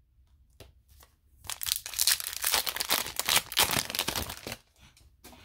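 Foil wrapper of a hockey card pack crinkling and tearing as it is opened and handled, a dense crackle starting about a second and a half in and lasting about three seconds, with a few faint ticks before and after.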